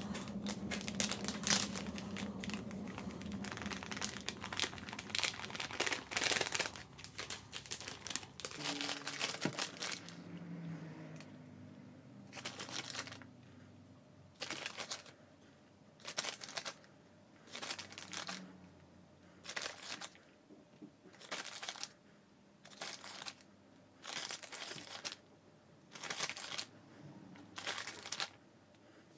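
Plastic bag of cake flour crinkling as it is handled. Dense rustling for the first nine or ten seconds, then short rustling bursts about every second and a half as the bag is shaken to tip flour into a frying pan.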